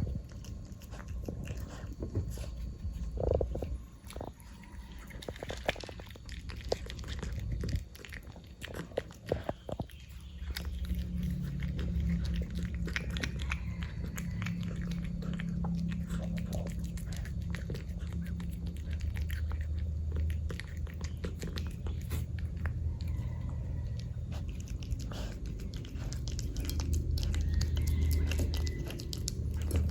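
Cat eating tuna in gravy, close up: wet chewing and lip-smacking clicks from biting and chewing the soft food. A steady low rumble sits underneath from about a third of the way in.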